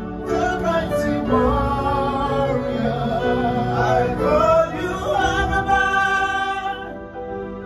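A man singing a gospel song with piano accompaniment, his voice sliding between held notes.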